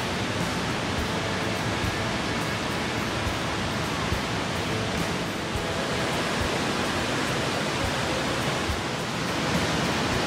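A waterfall cascading over rock: a steady, even rush of falling water, a little louder near the end.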